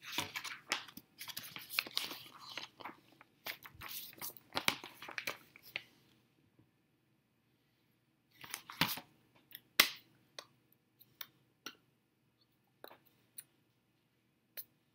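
Pages of a printed magazine-style report being riffled and handled: a dense run of paper rustling and flicking for about six seconds, another short flurry of page handling a little later, then a few scattered light clicks.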